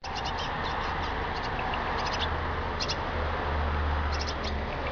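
Tame tits giving short, high chirps in quick little clusters about every second, over a steady hiss and low rumble.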